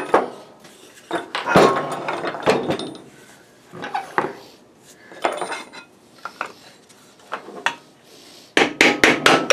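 Hammer blows through a wooden block on the end housing of a 3 HP table saw motor, knocking it loose: scattered knocks with metallic clanks, then a quick run of about five strikes near the end, after which the housing comes free.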